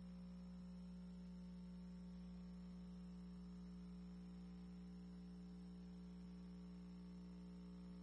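Near silence: only a faint, steady, unchanging hum.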